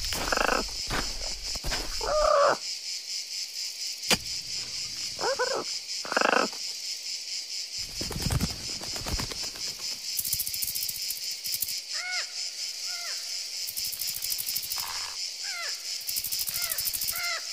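A steady, high, pulsing chirr of insects throughout. Over it come short squeaky cartoon-creature calls, a sharp click about four seconds in, and a run of little chirps that rise and fall in pitch near the end.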